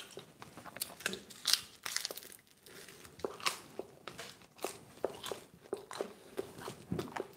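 A person chewing a mouthful of pizza: a run of short, irregular crunches and mouth clicks.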